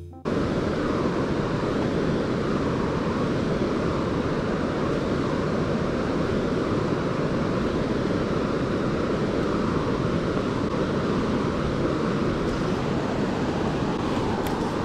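Steady rush of flowing river water, an even noise with no let-up, with some wind on the microphone.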